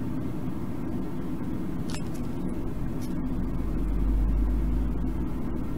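Steady low rumbling background noise that swells briefly about four seconds in, with one faint click about two seconds in.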